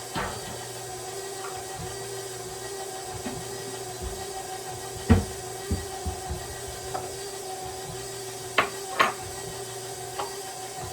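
Electric stand mixer running steadily with a paddle attachment, mixing cake batter. Over it come a few sharp knocks and clatters of kitchen things being handled, the loudest about five seconds in and two close together near the end.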